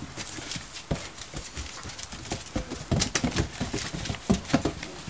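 Weimaraner puppies scrambling over an upturned hollow plastic pool, their paws knocking and scratching on the plastic in an irregular patter that grows louder and busier in the second half.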